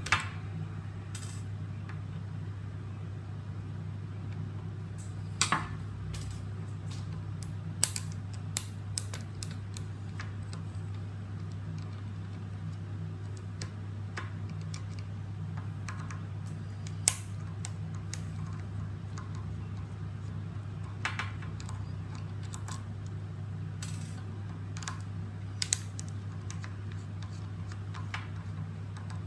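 Scattered sharp clicks and taps of a screwdriver and small plastic and metal parts being handled while a gel blaster's gearbox is taken apart, over a steady low hum.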